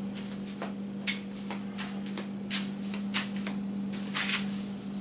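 Irregular rustling, shuffling and light knocks of a person moving about and sitting down on a chair, over a steady low hum.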